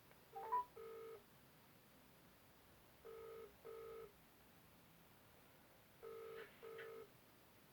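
Telephone ringback tone on an outgoing call: faint double 'ring-ring' pulses, three pairs about three seconds apart, in the British-style cadence. Just before the first pair comes a short rising chirp, the loudest sound.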